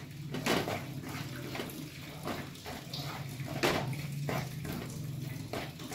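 A wooden spatula stirring and scraping gram flour (besan) as it roasts in ghee in a kadhai, with a wet, frothy sizzle. Irregular scrapes and knocks sound against the pan about once a second, over a steady low hum.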